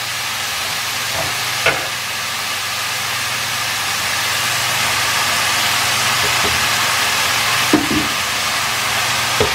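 Sliced mushrooms and onion frying in oil in a stainless steel pan, a steady sizzle that grows slightly louder, with a couple of short knocks of a wooden spatula against the pan.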